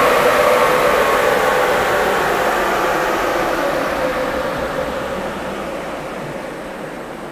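Turbocharged Toyota 5L diesel Hilux on a chassis dyno coasting down after a full-throttle pull, off the throttle. The wheels and rollers spin down with a whine that slowly falls in pitch and fades.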